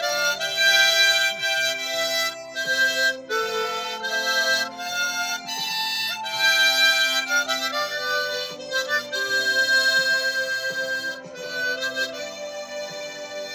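Harmonica playing a gospel hymn melody, a run of held notes changing every half second to a second, with lower chord tones sounding beneath.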